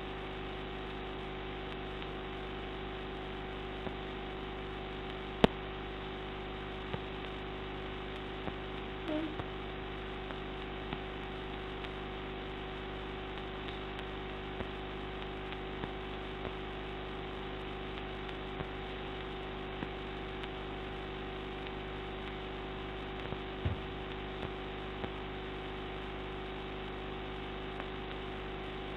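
Steady electrical hum with hiss and no coughing. A few faint scattered clicks come through, with one sharp click about five seconds in and a soft low thump later on.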